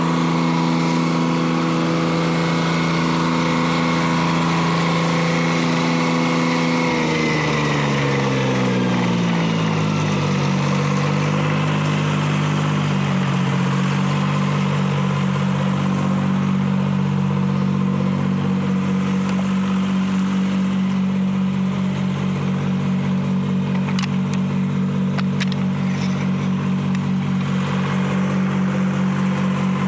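Detroit Diesel 3-71 two-stroke diesel powering a sawmill, running steadily, then dropping in pitch over about three seconds from around seven seconds in and holding lower with an even pulsing beat. A few light clicks come near the end.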